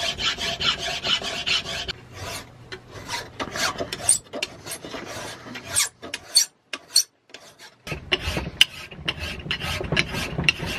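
Hand file rasping back and forth across the laminated iron core of an old chainsaw magneto held in a vise, being filed down thinner. Quick, repeated scraping strokes, with a short pause about six to seven seconds in.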